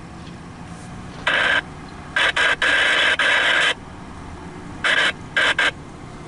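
Diesel locomotive horn sounding a series of blasts of uneven length: a short one about a second in, a longer broken blast from about two to nearly four seconds, then three short toots about five seconds in. Under it, the low, steady rumble of the approaching freight train.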